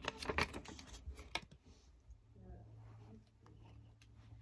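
A small paper sticky note being handled and folded close to the microphone: a quick run of clicks and rustles in the first second and a half, then only a faint steady low hum.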